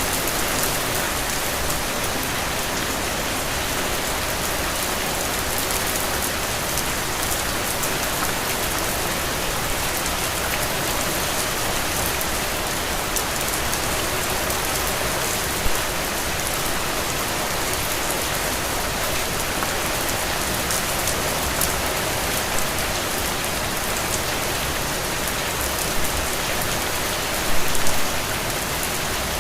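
Heavy rain falling steadily, a dense even hiss of drops on surfaces, with a few brief louder taps about halfway through and again near the end.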